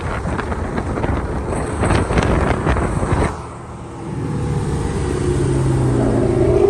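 Wind buffeting the microphone over the noise of a moving car, dropping away a little over three seconds in; then a muscle-car V8's note climbing steadily as it accelerates.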